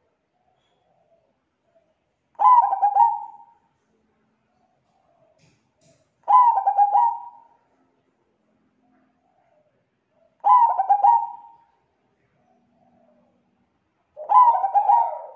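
Zebra dove (perkutut) cooing: four calls about four seconds apart, each a quick, rolling run of notes lasting about a second.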